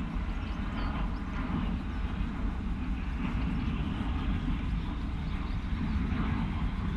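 Avro Vulcan's four Rolls-Royce Olympus turbojets heard from a distance as a steady rumble and hiss.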